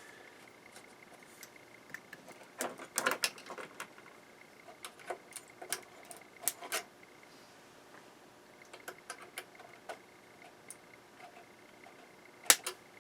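Small clicks and taps of fuses and hand tools being handled in a stereo receiver's fuse clips and chassis, irregular and scattered, with a cluster about three seconds in and a sharper click near the end. A faint steady high tone sits underneath.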